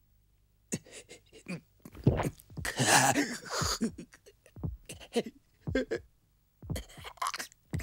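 A young man panting and grunting with effort in short, irregular bursts, loudest about three seconds in, as he strains at the pedals of a bicycle climbing a steep pass.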